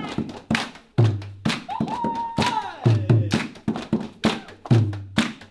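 Body-percussion groove: quick sharp claps and slaps over deep beats about twice a second. A voice-like line slides up, holds, and falls away about two seconds in.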